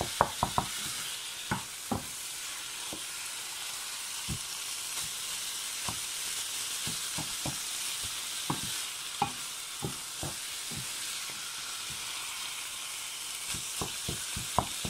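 Minced meat frying in a spiced sauce in a frying pan, sizzling steadily, while a wooden spatula stirs it with frequent irregular knocks and scrapes against the pan.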